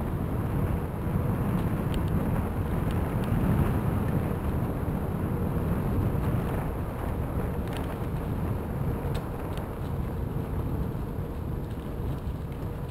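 Steady low rumble of wind on the microphone and bicycle tyres rolling over a packed gravel path strewn with leaves, with a few faint ticks now and then.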